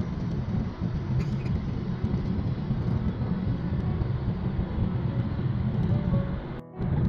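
Road noise of a moving car heard from inside the cabin: a steady low rumble with tyre hiss, which cuts out abruptly for a moment near the end.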